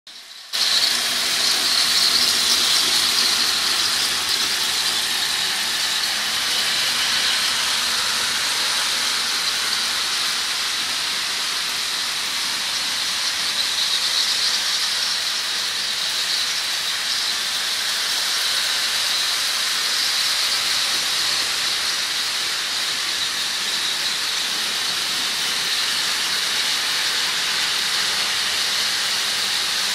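Several battery-powered toy trains running at once on plastic track: a steady, high-pitched whirring of their small electric motors and gears, starting about half a second in.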